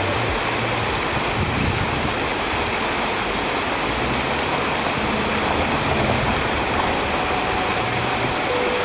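Steady rushing noise with no rhythm or breaks, like flowing water or wind.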